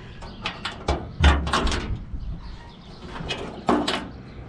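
Clicks and knocks from a 1967 Plymouth Barracuda's trunk as its newly installed key lock and latch are worked, with a heavier thunk about a second in and two sharp clicks near the end.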